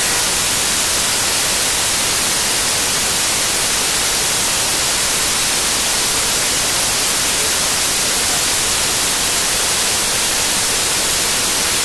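Loud, steady static hiss like white noise, even and unchanging, strongest in the high frequencies, covering the whole sound track with no other sound audible.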